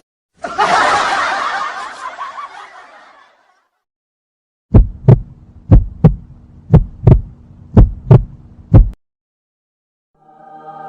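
Heartbeat sound effect: deep thumps in lub-dub pairs, about one pair a second, four and a half beats' worth. Before it, a short noisy rush that fades away over about three seconds.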